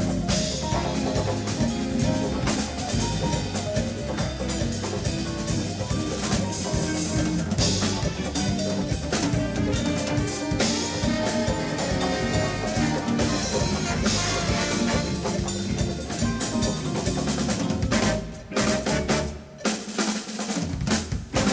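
Live big band jazz with the drum kit to the fore: busy snare, bass drum and cymbal playing over the band. Near the end the playing breaks up into separate sharp hits with short gaps between them.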